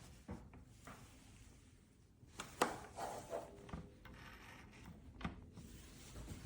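Faint handling noises: scattered knocks and rubbing, with a sharp click about two and a half seconds in and another a little after five seconds.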